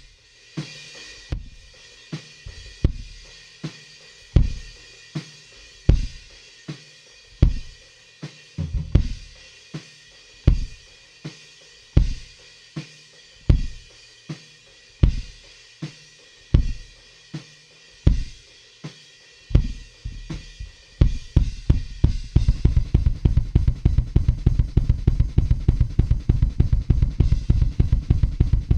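Drum kit recording with kick and snare on a slow, steady beat under cymbals. About three-quarters of the way in it breaks into fast, continuous double-kick drumming. The drums are played back through a Lindell Audio 7x-500 FET compressor as a demonstration of its sound.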